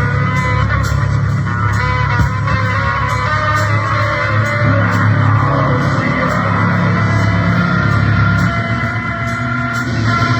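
Loud, dense rock-style guitar music with a steady pulse.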